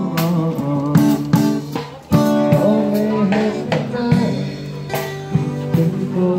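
Live street busking: an acoustic guitar played with a man singing, and drum hits from a small drum kit, carried over small amplifiers.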